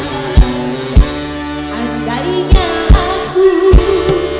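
Live dangdut band music through a PA: a woman singing over keyboard, electric guitar and mandolin, with heavy drum beats every second or so.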